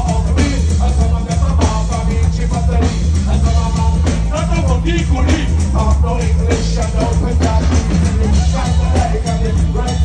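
Live concert music played loud over a PA: a heavy, steady bass beat with a man singing into a microphone.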